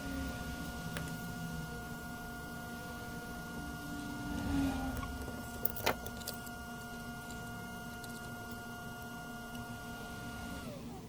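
Steady high-pitched whine of a hot-air rework station's blower, which winds down and stops near the end. A couple of sharp clicks about six seconds in.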